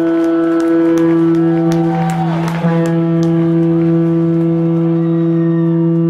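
Ice hockey arena goal horn blaring, a steady multi-note horn chord held without a break. A brief gliding tone sounds over it about two seconds in.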